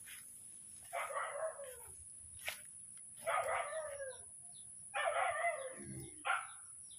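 An animal calling four times, about a second and a half apart, each call under a second long.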